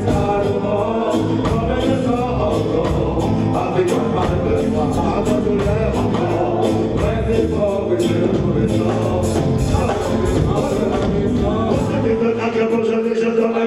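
Live reggae band playing, with drums, bass, electric guitar and keyboard under a sung vocal line, at a steady beat. About twelve seconds in, the bass and low drums drop out, leaving the higher parts.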